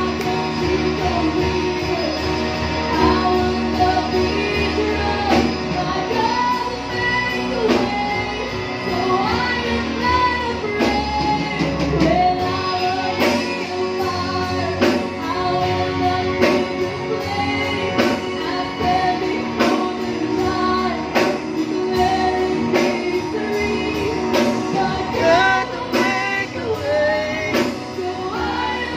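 A woman singing a worship song into a microphone, backed live by acoustic guitar, electric guitar and keyboard.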